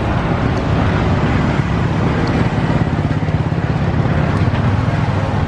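A motor running nearby with a steady low rumble, over the general noise of a busy street.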